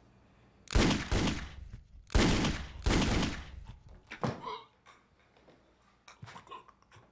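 Four gunshots in quick succession, two close together and then two more about a second later, each with a ringing tail. A fainter knock follows about four seconds in.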